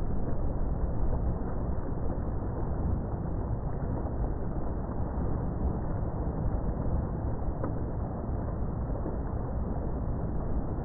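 Steady low rumble of wind and moving water, even throughout with no distinct events.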